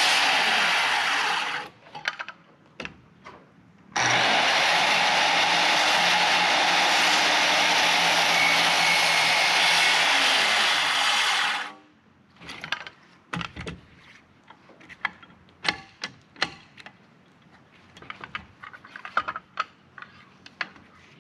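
Circular saw cutting through wooden framing lumber in two passes: a short one that stops about a second and a half in, and a longer one from about four seconds to about twelve. After that come scattered light knocks and clicks.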